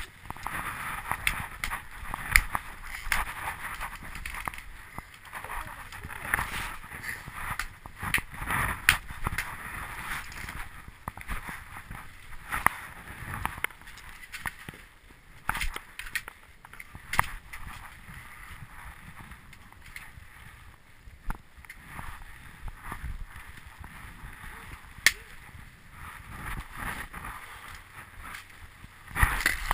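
Ski boot buckles being clamped shut and ski gear being handled: a long string of sharp clicks and knocks over rustling, with muffled voices now and then.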